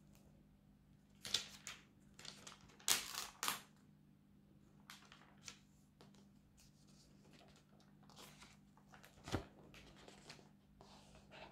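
Sketchbook pages being handled and turned: a string of short paper rustles and crinkles, loudest about three seconds in, with a single soft knock about nine seconds in as a page comes down.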